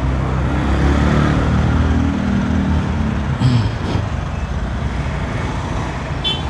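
Heavy truck's engine running close by in street traffic; its low hum fades about three seconds in. A short hiss follows, and a brief high squeal comes near the end.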